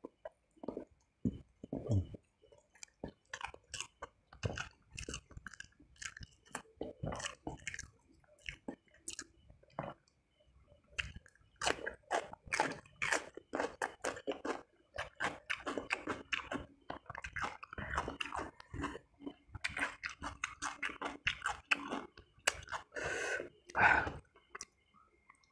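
Close-up chewing of a man eating with his hand: wet mouth smacks and clicks of spicy meatballs and rice, with crisp bites of raw cucumber. The chewing gets busier about halfway through.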